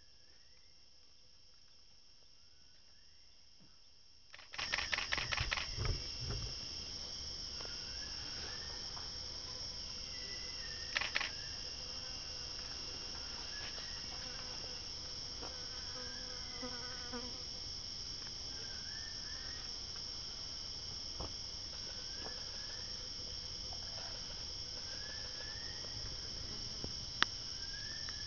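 Rainforest insects start up suddenly about four seconds in with a rapid pulsing, then hold a steady, high-pitched drone. Short bird whistles sound now and then, and there are a few sharp clicks near the end.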